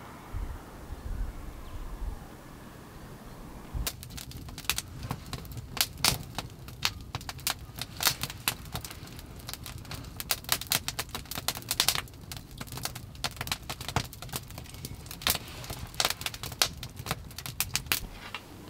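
Open wood campfire crackling, with dense, irregular sharp pops that start about four seconds in and stop shortly before the end. A low rumble comes before the crackling.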